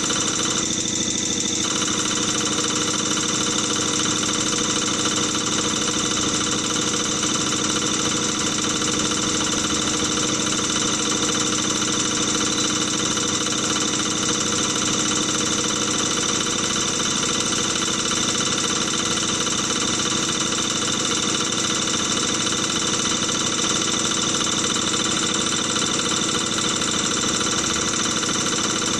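CRS708D common rail diesel test bench running a test: its drive motor turning the high-pressure fuel pump gives a steady mechanical drone with several steady tones. A low tone drops away about halfway through.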